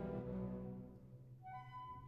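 Background music of slow held notes: a chord fades away over the first second, then a single soft high note comes in about one and a half seconds in.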